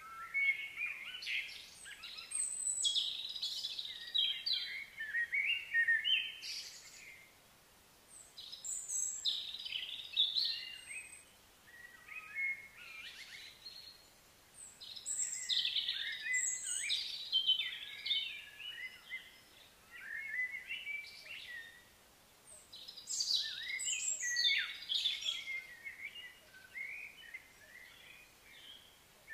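Songbirds singing in several bouts of quick chirps and warbling notes, each a few seconds long with short pauses between, over faint steady outdoor background noise.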